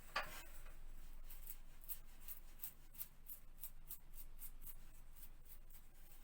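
Brush bristles scrubbing overlap adhesive into the gaps of vinyl wallpaper seams: quick, light scratching strokes about four a second, with one louder sound right at the start.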